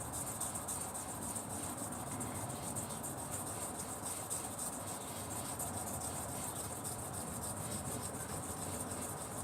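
Hair clipper blade being rubbed on a wet sharpening stone: a steady, unbroken scraping as it is honed.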